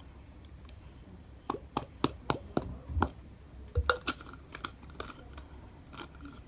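A run of irregular light clicks and taps, about a dozen over a few seconds, with a couple of soft thumps: small objects being handled.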